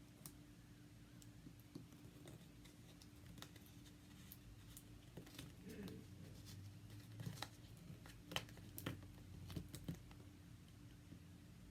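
Faint clicks and light handling noises of small objects being worked by hand, with a few sharper ticks in the second half, over a steady low hum.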